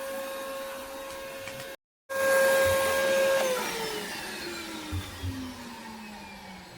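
Shop vac pulling water out of a garden irrigation line, its motor running with a steady whine. The sound drops out for a moment about two seconds in. Past the middle the motor winds down, its whine falling steadily in pitch and fading as it spins down.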